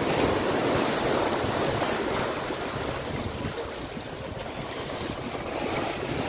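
Sea surf washing and breaking over shoreline rocks, with wind buffeting the microphone. The wash is loudest about a second in, eases about four seconds in, and builds again near the end.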